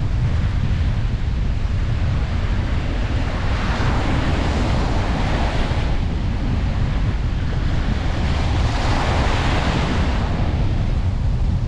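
Ocean surf on a beach, with two waves breaking and washing in, the first about four seconds in and the second about nine seconds in. Under it runs a steady low rumble of wind on the microphone.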